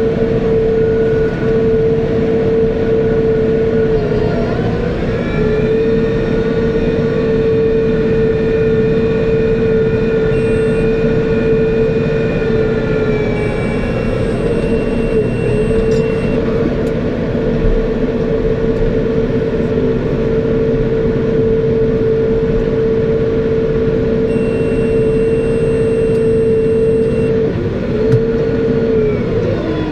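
Tractor running steadily under load while powering a round baler, a continuous rumble with a steady whine that dips briefly in pitch a few times.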